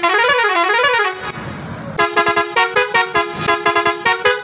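Roots six-pipe musical truck horn set sounding through a digital melody maker: first a wailing tone that rises and falls twice, then, about two seconds in, a fast tune of short horn notes. The horns are being test-sounded after fitting.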